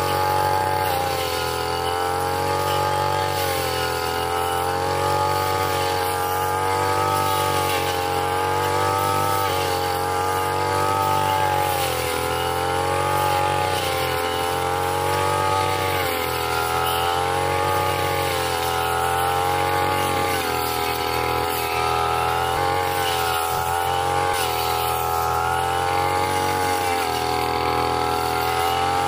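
Backpack brush cutter engine running at high speed while its circular blade cuts through grass and brush; the engine's pitch rises and falls every second or two as the blade meets the growth.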